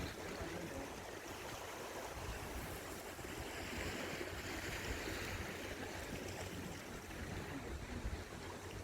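Sea waves washing, with one wash of surf swelling and fading about halfway through, and a low wind rumble on the microphone.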